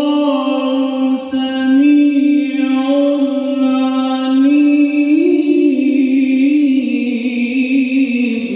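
A man reciting the Qur'an in melodic chant, one voice holding long drawn-out notes that bend slowly up and down, with a short hissed consonant about a second in. The phrase ends at the very end and dies away.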